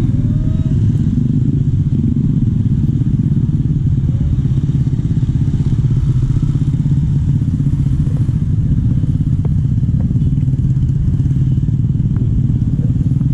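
Motorcycle traffic passing close by, a steady low rumble of small engines, with a few faint clicks.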